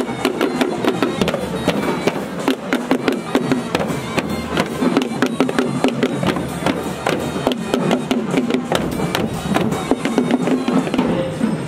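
A troupe of Sri Lankan two-headed barrel drums, including stick-beaten davul, played together while marching: a fast, dense, steady rhythm of drum strokes.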